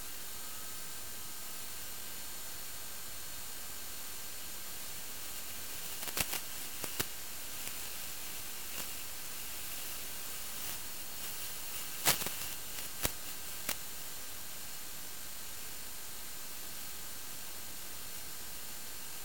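Steady static hiss with faint steady whine tones, broken by a few sharp crackles about six seconds in and again between twelve and fourteen seconds, the loudest near twelve.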